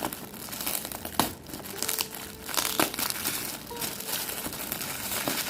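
Gift wrapping paper crinkling and rustling as a present is unwrapped by hand, with irregular crackles and a few sharper snaps.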